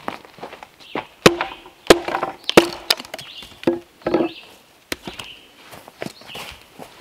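Wood being chopped with a hand tool: a series of sharp, woody strikes, spaced roughly half a second to a second apart, over the first five seconds. Birds chirp faintly between the strikes and after them.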